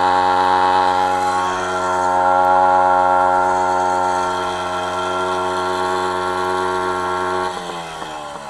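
WSK 125's single-cylinder two-stroke engine held at steady high revs, then revs dropping off about seven and a half seconds in.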